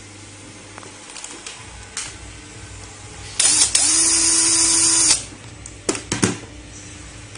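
Cordless electric screwdriver spinning for about a second and a half, a little past halfway, backing a screw out of a scooter controller's aluminium heat sink. A few sharp clicks follow shortly after.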